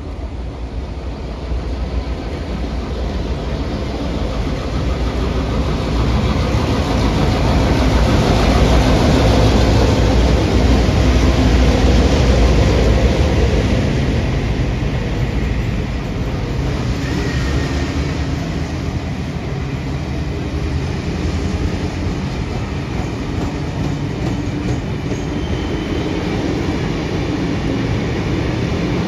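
Two NSW 42 class streamliner diesel locomotives, each with an EMD 567 two-stroke V16 engine, run past at speed, growing louder to a peak about ten seconds in. A long train of heritage passenger carriages then rolls steadily past behind them.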